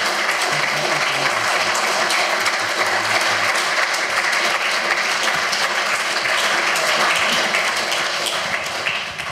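Audience applauding steadily, a dense patter of many hands clapping, which dies down near the end.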